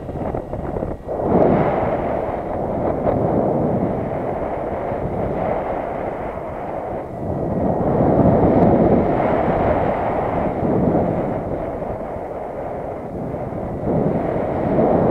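Wind buffeting the microphone: a loud, rumbling rush that swells and eases, strongest about a second and a half in, around eight to nine seconds in, and again near the end.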